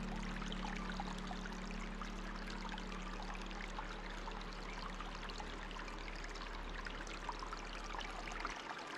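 Flowing water trickling and splashing, with small droplet-like flecks throughout. A low steady hum lies beneath it and stops near the end.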